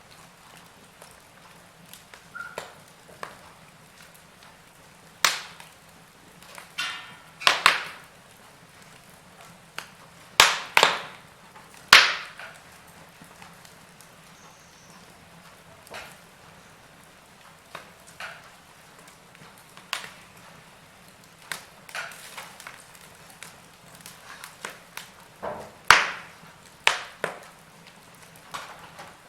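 Wood fire crackling: irregular sharp pops and snaps over a low hiss, with a few much louder snaps about a third of the way in and again near the end.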